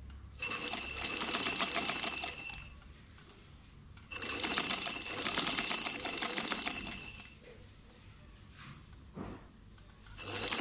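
Sewing machine stitching a narrow rolled hem through a hemmer foot, running in short bursts: about two seconds, a pause, about three seconds. It starts again near the end after a quieter gap with a faint knock or two.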